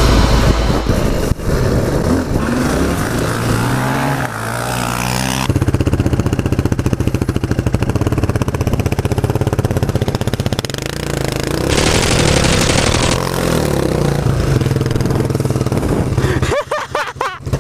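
Dirt bike engine revving up and down while riding a trail, then, after a cut, engines running with a steady pulsing note as a quad is driven through deep mud, with a brief hissing spray about twelve seconds in.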